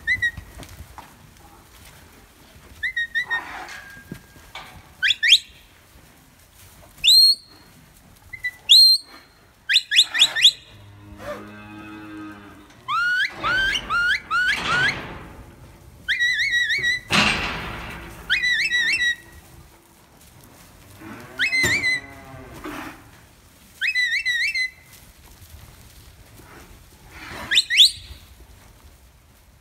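Shepherd's whistle commands to a herding dog: short, high whistles, some rising and some warbling, repeated about a dozen times. Aberdeen Angus cattle moo in between, about 11 seconds in and again around 22 seconds.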